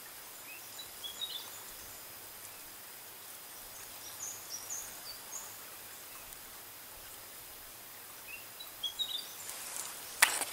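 Small bird chirping in short high phrases over a steady outdoor hiss: one phrase about a second in, higher chirps midway, and the same phrase again near the end. A sharp rustling knock comes right at the end.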